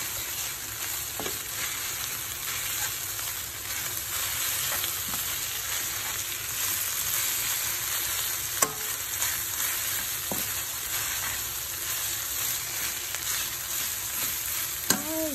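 Kimchi fried rice with diced Spam sizzling in a nonstick frying pan while a spatula stirs and turns it, with a few sharp taps of the spatula against the pan, the loudest a little past halfway.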